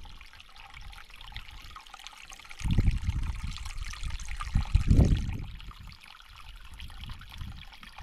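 Canyon stream running with a steady rushing, trickling hiss. A low rumble comes twice, about three and five seconds in, louder than the water.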